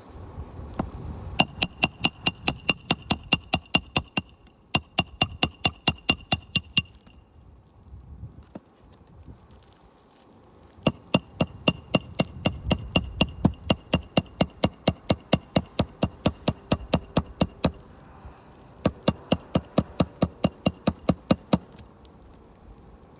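Hammer driving roofing nails into asphalt shingles: four runs of quick, ringing strikes, about four a second, with short pauses between them.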